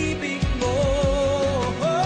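Song with a singer holding a long note with vibrato over a steady drum beat and backing instruments, a new note beginning near the end.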